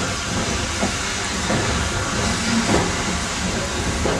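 Peppercorn A1 Pacific steam locomotive 60163 Tornado hissing heavily as it lets off steam. A few brief louder pulses stand out from the steady hiss.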